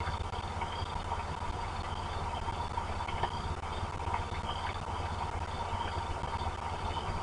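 Steady heavy rain with a low rumble on an outdoor camera microphone, with a few sharp drip taps. A high chirp repeats about twice a second in the background.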